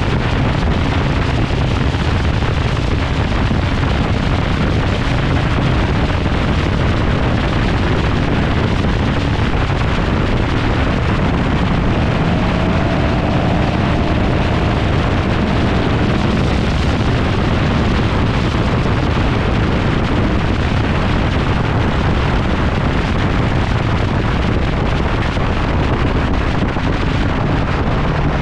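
Steady wind buffeting on a microphone mounted on the outside of a 1971 GMC Sierra pickup at road speed, over the low rumble of its 383 stroker V8 and tyre noise on the pavement.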